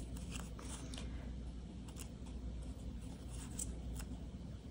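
Small paper scraps being handled and layered by hand: faint rustling with scattered soft ticks.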